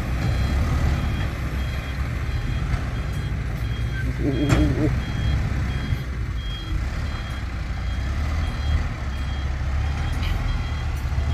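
Heavy truck diesel engines running with a truck's reversing alarm beeping steadily, about two high beeps a second. About four and a half seconds in there is one short pitched sound.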